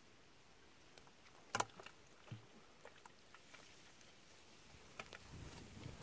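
Handling a live catfish at a plastic bucket and sorting a wet fishing net: one sharp knock about a second and a half in, a duller knock just after, a few light taps, then soft rustling and small thuds near the end.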